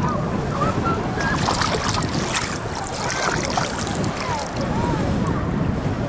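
Small sea waves lapping and splashing around a person standing in the water, with wind buffeting the microphone. The splashing is busiest in the middle.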